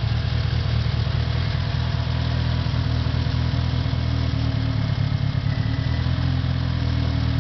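Turbocharged car engine idling steadily.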